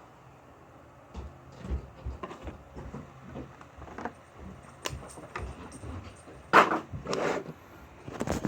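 Puzzle cubes and their packaging being handled and set down: scattered small knocks and clicks, with two louder scraping handling sounds about six and a half seconds in and more clatter near the end.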